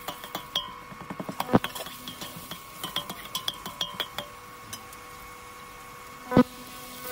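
Perforated stainless-steel ladle clinking and scraping against a stainless-steel pot while onions and ginger-garlic paste are stirred in hot oil. There is a quick run of light clinks for the first few seconds, then a single louder knock of the ladle on the pot near the end.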